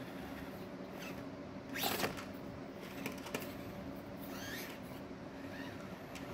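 Axial SCX24 micro RC crawler creeping over rocks, its small electric motor and gear drivetrain whining faintly and steadily. A brief loud scrape of tire or chassis on rock comes about two seconds in, and two sharp clicks follow about a second later. Faint high squeaks come near the end.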